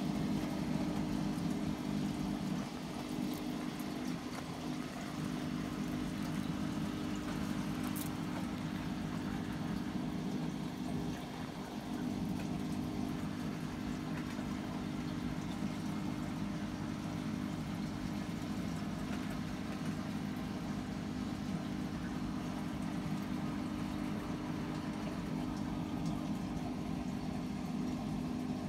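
Aquarium filter pump running with a steady low hum and the rush of water flowing.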